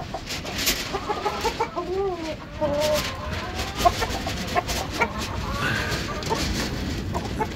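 Chickens clucking in a coop, with short wavering calls in the first few seconds. Scattered sharp clicks and taps run through it, the loudest about four seconds in.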